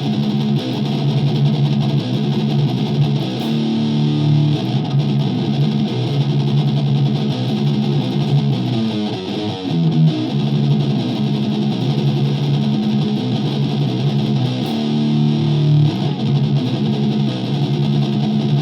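Electric guitar played through the Fender Mustang LT-25 amp's built-in distortion, with no pedal in the chain. Distorted chords ring out and change every second or so, with a brief gap about nine seconds in.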